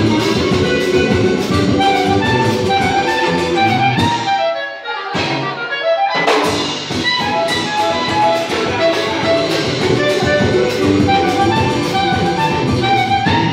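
Live choro-samba quartet: clarinet playing the melody over cavaquinho, seven-string guitar and drum kit. About five seconds in, the band stops briefly and then comes back in.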